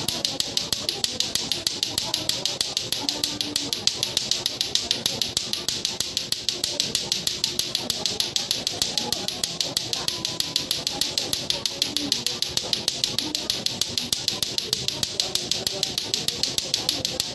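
Latto-latto clackers, two hard plastic balls on strings, striking each other over and over in an unbroken rhythm of sharp clacks, about five a second, kept up steadily without a miss.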